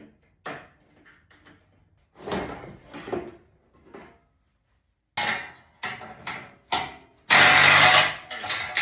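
Tool work on a car's front suspension: scattered knocks and scrapes, then a quick run of sharp clicks and knocks about five seconds in, and a loud, harsh burst of just under a second near the end.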